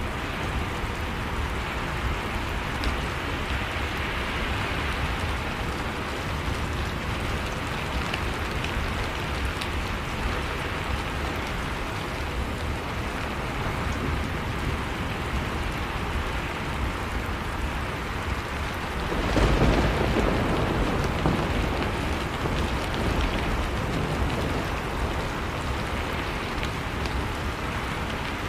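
Heavy rain falling steadily. About two-thirds of the way through, a clap of thunder breaks in suddenly and rumbles on for several seconds; it is the loudest sound.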